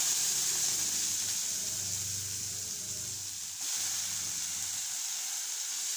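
Curry leaves and chopped onion sizzling steadily in hot coconut oil in a kadai, the start of a tempering.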